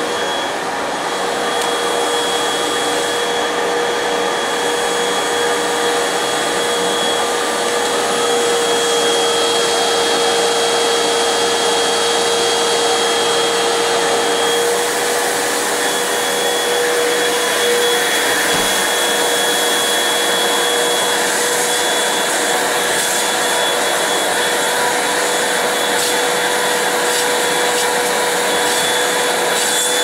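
Upright bagless vacuum cleaner running continuously as it cleans carpet, a loud steady rush of air with a constant high whine from its motor.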